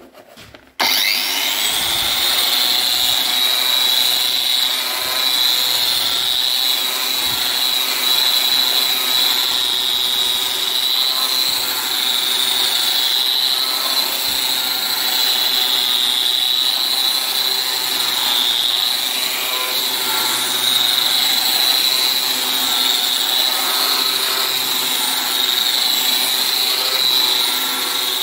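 Electric wall sander with an orbital pad and built-in dust extraction switching on about a second in, spinning up with a brief rising whine, then running steadily with a high whine. Its coarse 80-grit disc is sanding old wallpaper glue off a concrete wall.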